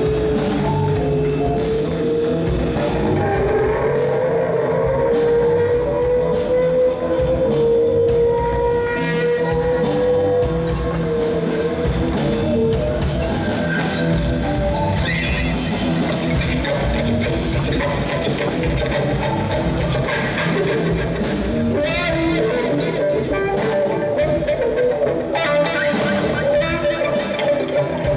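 Rock music with guitar and drums. A long held note slowly bends upward over the first ten seconds, and busier guitar playing follows.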